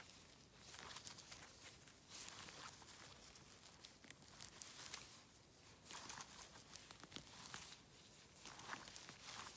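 Faint rustling of wet moss and a nitrile glove as funnel chanterelles are plucked from the forest floor, in short scratchy bursts with a few small snaps.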